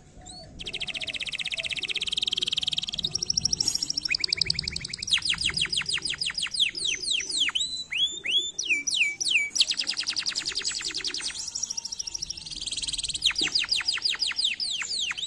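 Yellow domestic canary singing: a long song of fast trills and rolls of quick falling notes, starting about half a second in, with brief pauses between phrases.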